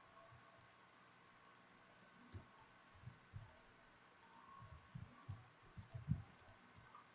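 Faint computer mouse clicks, a dozen or so at an irregular pace, some in quick pairs, with a few soft low thumps.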